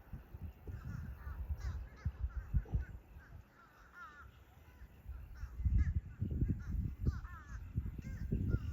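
Limpkin giving repeated short, harsh calls over a low, irregular rumble that grows louder about halfway through.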